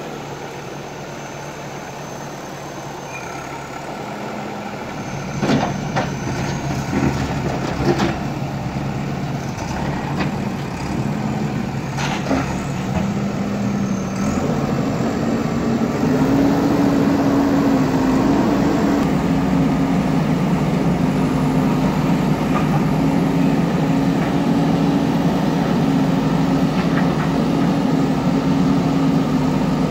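A JCB earthmover's diesel engine runs under load and revs up twice, about five seconds in and again past the halfway mark, then holds a higher, louder pitch. A few sharp metal clanks sound in the first half, along with a thin high whine that comes and goes.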